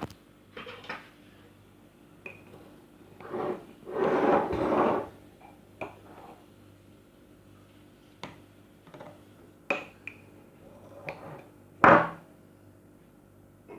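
A small spoon clinking and scraping against a container while powdered sugar is scooped and tipped in: scattered light clicks, a longer scraping stretch about four seconds in, and a sharp knock near the end.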